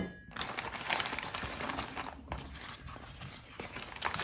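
Plastic poly mailer rustling and crinkling as it is handled and a cardboard knife box is slid out of it, with a short pause about two seconds in.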